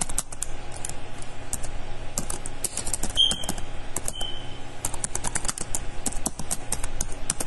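Typing on a computer keyboard: a quick, irregular run of key clicks as a sentence is typed out.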